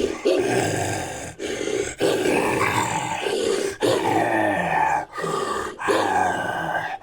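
A string of about six guttural growling, roaring creature calls, each up to a couple of seconds long with brief breaks between them. It is a made-up monster sound effect built from a human voice and wolf and leopard recordings.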